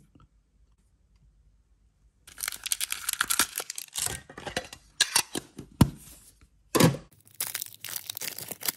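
A foil booster pack crinkling as it is handled and taken out of a small metal tin, with a couple of sharp knocks, then the foil being torn open near the end.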